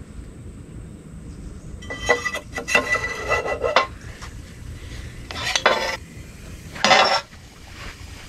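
Metal clinking and scraping as a frozen cylinder sleeve is fitted into a heated two-stroke jet ski cylinder, with a short ringing note in the first cluster. Two sharper metal clanks follow, the loudest about seven seconds in.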